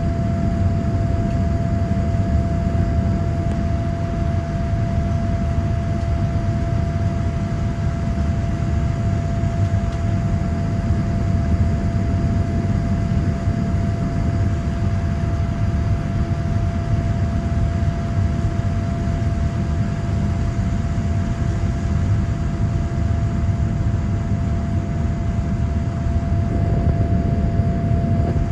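Steady cabin noise inside a Boeing 787-9 airliner with its engines running: an even low rumble with a constant whine over it.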